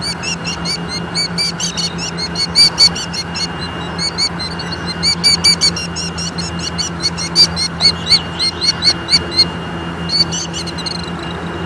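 Killdeer giving agitated alarm calls: sharp, high notes repeated fast in runs, which pause near the end. A steady low hum runs underneath.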